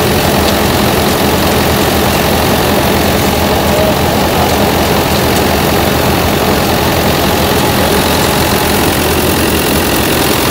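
A New Holland 640 tractor's diesel engine running steadily under load, driving a belt-driven grain thresher through its PTO shaft, with the thresher's machinery running along with it. The noise is loud and constant.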